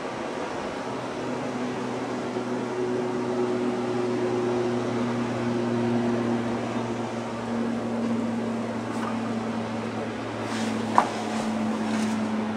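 A steady low hum made of a few held tones, with a single short click about eleven seconds in.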